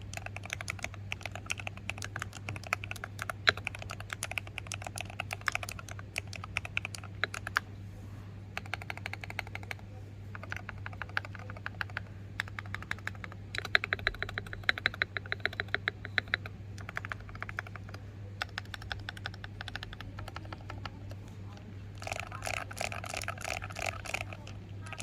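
Typing on an Akko 3098B mechanical keyboard with Akko Jelly Starfish x Radiant Red switches, foam and tape mods and a PE pad, under KSA-profile double-layer pudding keycaps. Quick runs of keystrokes come in bursts with short pauses between them, over a steady low hum.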